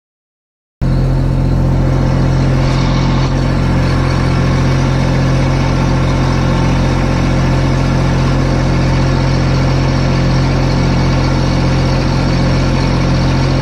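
Riding mower's engine running steadily at an even speed while the mower drives along. The sound cuts in abruptly about a second in.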